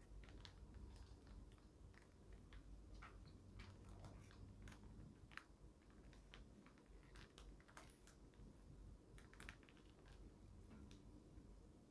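Faint, irregular light clicks and taps of small objects being handled, about one or two a second; otherwise near silence.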